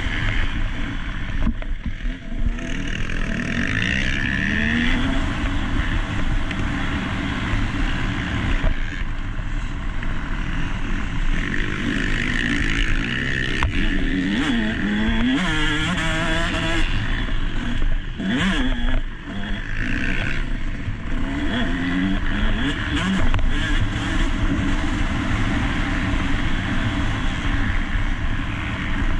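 Motocross dirt bike engine heard onboard under race riding, revving up and dropping back again and again as the rider shifts and opens and closes the throttle, with a brief drop in engine sound near the start and another about two thirds through. A steady rush of noise, likely wind, runs underneath.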